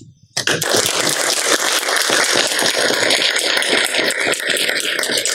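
Audience clapping. It starts abruptly about half a second in and holds steady.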